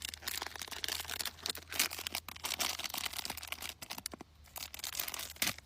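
Blind-box packaging being opened by hand: dense crinkling and tearing crackles, easing off about four seconds in.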